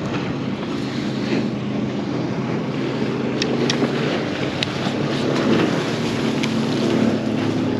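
Boat motor running steadily under wind noise on the microphone and the wash of water, with a few sharp clicks partway through.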